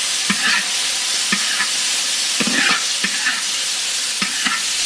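Dried tofu strips sizzling in hot oil in a wok, under a steady hiss, while being stir-fried. Stirring strokes scrape and knock against the wok about eight times.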